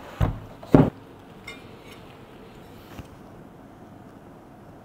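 Two dull thumps in quick succession in the first second as the compact fiber laser marking machine is lifted from its foam packing and set down on a glass tabletop, followed by a couple of light clicks of handling.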